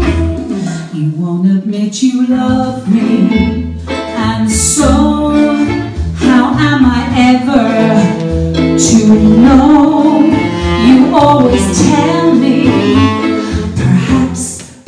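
Live band playing: a woman sings the lead over electric guitar and deep bass notes.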